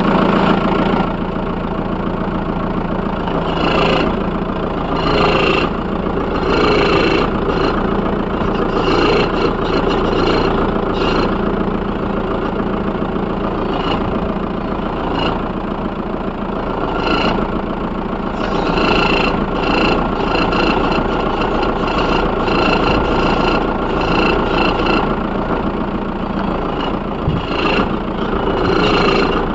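Volkswagen Polo 1.9 TDI diesel engine idling after a cold start, with a recurring noise from the accessory belt that flares up briefly and irregularly every second or two as the steering wheel is turned. A mechanic traced the noise to the alternator belt and pulley.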